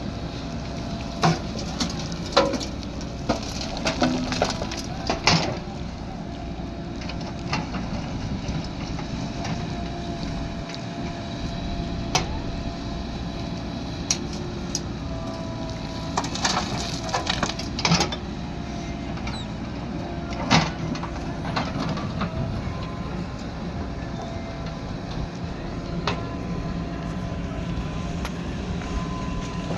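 Diesel engine of a JCB 3DX backhoe loader running steadily while loading earth, with scattered sharp knocks and cracks on top, about a dozen across the stretch.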